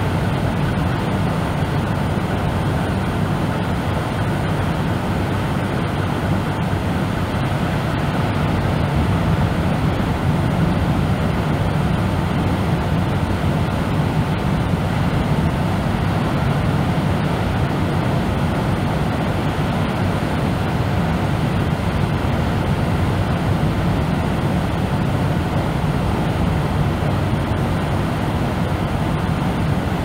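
Deep, steady brown noise: an unbroken, muffled rush with most of its weight in the bass and no distinct waves or other events.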